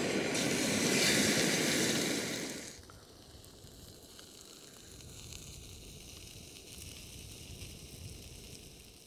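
Steak sizzling in a frying pan over a small canister gas stove, faint and crackly. For the first few seconds it is covered by loud rushing wind noise, which drops away suddenly.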